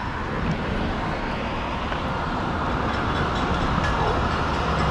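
Steady rumble of a passing vehicle, slowly growing louder.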